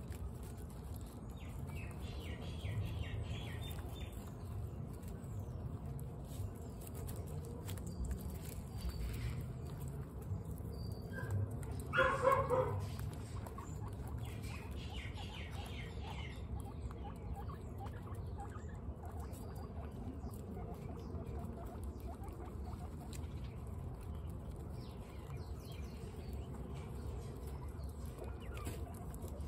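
Guinea pigs crunching dry pellets, with many small crisp clicks as they chew and nose the pellets around steel feeding bowls, some stretches of rapid ticking. About twelve seconds in, a short pitched call stands out, the loudest sound here.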